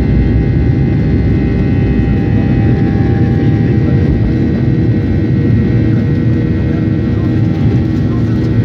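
Boeing 737 jet engines running at high power during takeoff, heard inside the cabin as a loud, steady rumble with a thin, steady whine above it.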